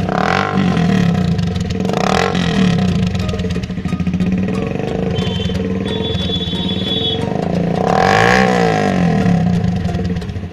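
Motorcycle engine idling through its exhaust, with the throttle blipped three times: near the start, about two seconds in, and a longer rev that rises and falls about eight seconds in.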